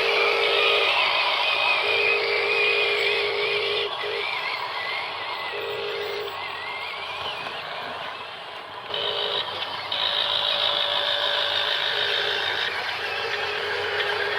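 Small electric motors and gearboxes of radio-controlled construction vehicles whining, the pitch wavering as the throttle changes, with a lower steady tone cutting in and out. The sound drops back about four seconds in and picks up again near ten seconds in.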